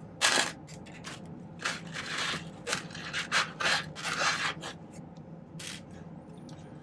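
Handmade silver chain bracelet being handled, its links rubbing and scraping in a series of short strokes for the first few seconds, with one more near the end of the handling.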